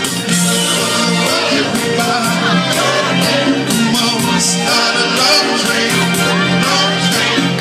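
Live music: a male singer backed by guitar, with held bass notes and a steady beat.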